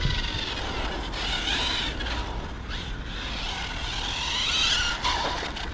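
Brushless electric RC cars running on asphalt, their high motor whine rising and falling as they speed up and slow down, louder toward the end, over a low steady rumble.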